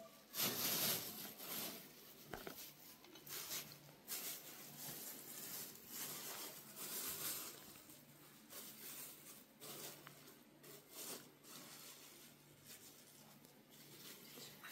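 Thin plastic bags rustling and crinkling in irregular bursts as they are handled and opened, loudest about half a second in.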